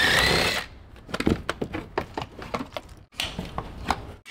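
A handheld power tool's motor whirs with a steady whine and cuts off within the first second, then a run of light clicks and knocks follows.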